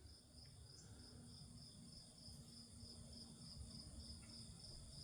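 Near silence, with faint insects chirping in a steady, evenly pulsing high trill.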